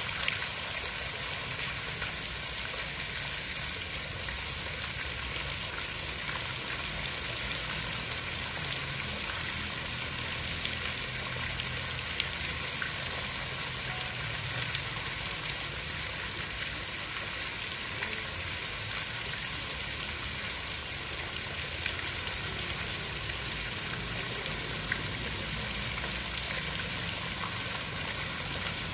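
Steady, even hiss of water, with occasional faint ticks and a low rumble underneath.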